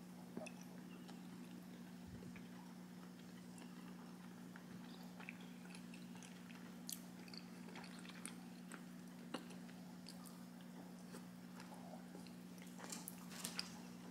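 Faint chewing with small wet mouth clicks and ticks, from eating a soft mochi, scattered through and bunching up near the end, over a steady low hum.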